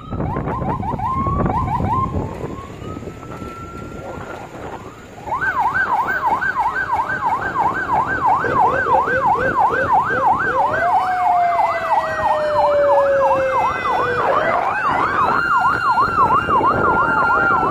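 Several electronic vehicle sirens sounding together over the running noise of the vehicles. About five seconds in, a fast yelp sets in, sweeping up and down about three or four times a second. Slower wails glide down and then rise and hold over it.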